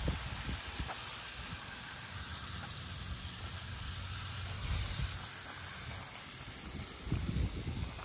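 Steady outdoor background hiss, with brief low rumbles against the microphone about seven seconds in.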